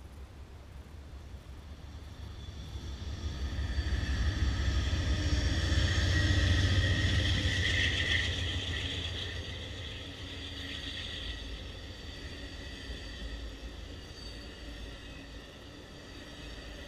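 Amtrak passenger train passing at speed: a GE P42DC diesel locomotive approaches with a rising low rumble, loudest from about four to nine seconds in, with a high whine over it as it goes by. Then the Superliner double-deck cars roll past with a steadier, quieter rumble of wheels on rail.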